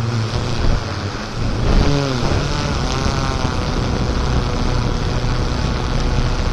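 An off-road vehicle's engine running while driving, with a dense rushing noise over it; the engine pitch swells and drops about two seconds in, then holds fairly steady.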